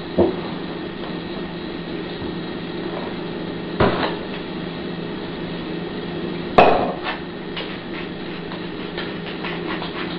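A few sharp knocks of a utensil against a saucepan, the loudest about four and six and a half seconds in, then quicker light clicks of stirring in the pot, over a steady low hum.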